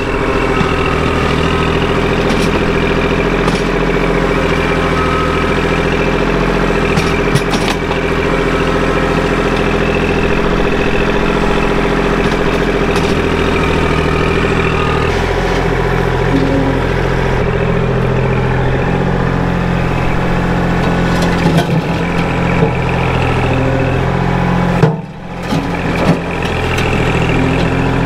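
Kubota L2501 compact tractor's three-cylinder diesel engine running steadily while its front loader works the bucket through sandy soil. There are a few short knocks, and a brief break near the end.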